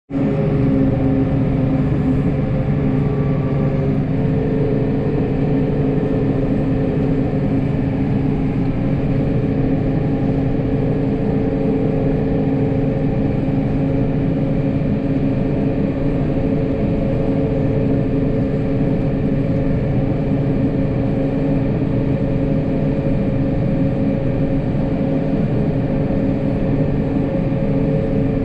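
Snowplow vehicle's engine running steadily, its note shifting slightly about four seconds in.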